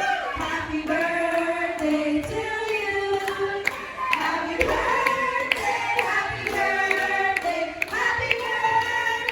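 Several voices singing together over music, with held sung notes and a few sharp clicks.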